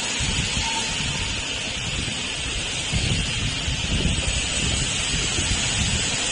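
Steady background hiss with low, uneven rumbling, like wind or handling noise on the microphone.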